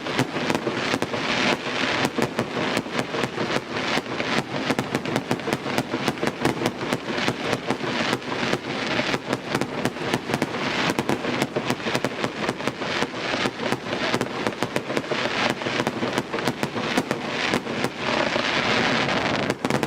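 Fireworks display: a dense, rapid run of bangs and crackles, many each second, going on without a break.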